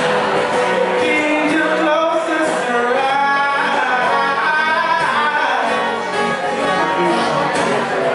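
Live rock song: a man singing long, held lines over guitar accompaniment.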